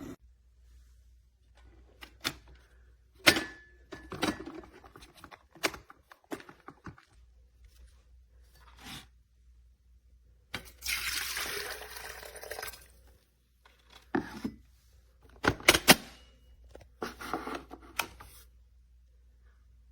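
Scattered sharp knocks and clinks of things being handled, with about two seconds of water pouring a little past halfway.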